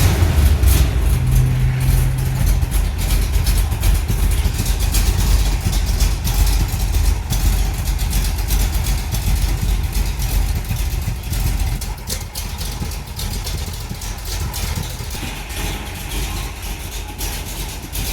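1975 Chevrolet C10 pickup's engine just started and running with a loud, rough low rumble that eases a little toward the end.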